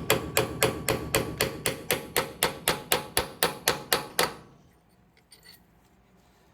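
Hammer striking a steel punch in quick, even blows, about four a second, to drive the preload wedge into a Coleman axle wheel end and set the wheel-bearing preload. The blows stop about four seconds in.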